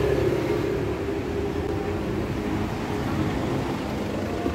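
Steady low mechanical drone with a faint hum, holding even with no sharp knocks.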